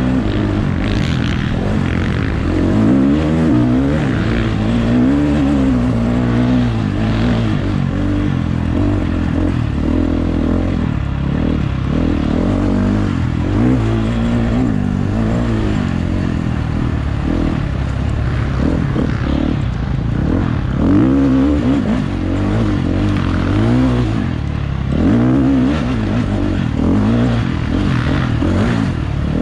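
Off-road dirt bike engine revving hard and easing off over and over, its pitch climbing and falling every two to three seconds as the rider works the throttle over a hare scramble course.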